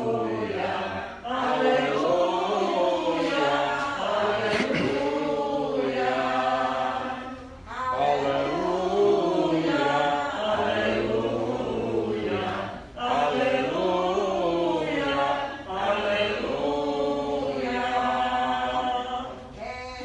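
A small congregation singing a hymn together in phrases of a few seconds, with short breaks between phrases.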